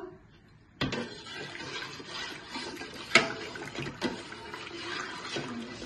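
Milk being stirred with a steel ladle in a large steel pot: liquid swishing, with a few clinks of the ladle against the pot, the sharpest about three seconds in.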